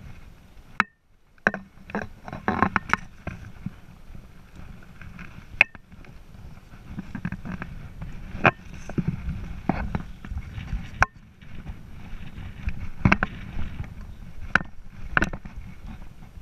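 Handling noise on a body-worn action camera: about a dozen sharp knocks and clicks at uneven intervals, with scraping and rustling of clothing and gear as the wearer moves over rock, over a low rumble.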